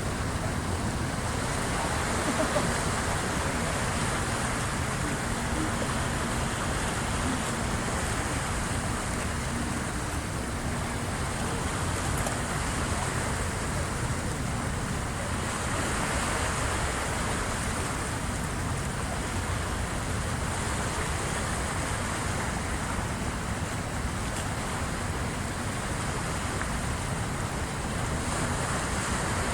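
Waves of the incoming high tide washing against the shore: a steady rush of water that swells now and then, with wind.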